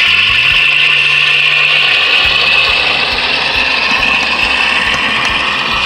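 HO-scale model locomotive running steadily along the track through a turnout, its motor and gearing giving a steady whine; it runs through without shorting out, showing the frog's micro switch is wired right.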